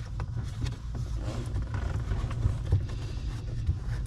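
Rustling and scattered light clicks of plastic vacuum line being worked behind the dashboard by hand, over a steady low rumble.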